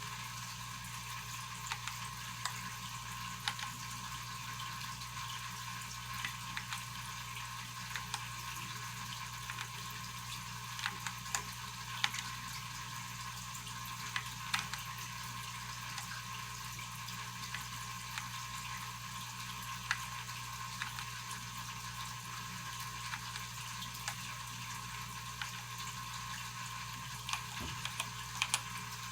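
Steady background hiss with scattered faint clicks.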